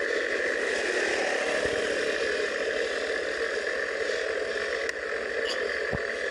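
Steady rushing wind and tyre noise from a road bike rolling along, with a short knock near the end.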